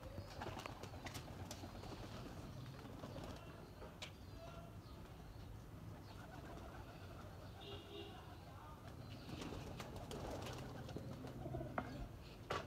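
Domestic pigeons cooing, with a few sharp knocks, the loudest one near the end.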